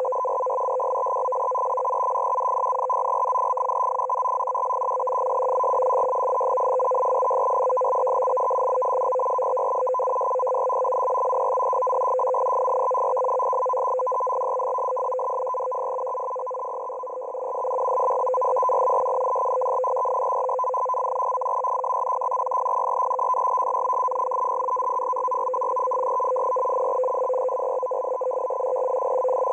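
Russian M42b digital data transmission heard through a shortwave receiver: a dense, steady buzz of tones, strongest at a low pitch and one an octave above it. It fades briefly a little past halfway, then returns.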